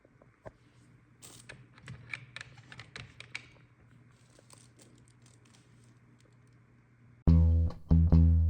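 Scattered faint clicks and taps over a low hum, then background music with a heavy drum and bass beat comes in loudly about seven seconds in.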